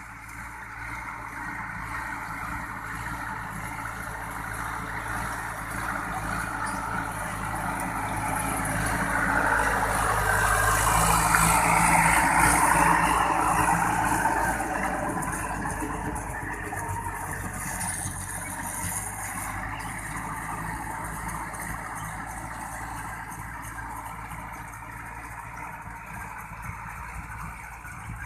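A motor vehicle's engine running, with its sound swelling to its loudest about halfway through and then fading away again.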